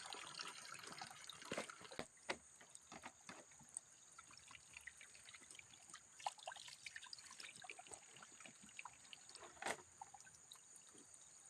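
Faint water trickling and splashing in small, irregular bursts, with scattered light clicks and knocks over a steady high hiss.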